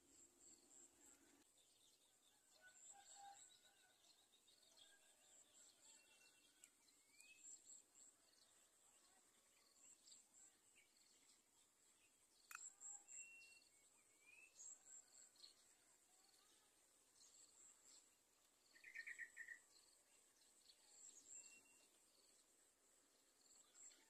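Faint natural ambience: a high, pulsing insect trill throughout, with scattered short bird chirps and a brief rapid run of notes late on.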